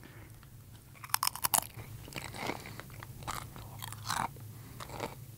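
A person biting into a crunchy snack and chewing it: a quick cluster of sharp crunches about a second in, then a run of softer chewing crunches that stop a little after four seconds.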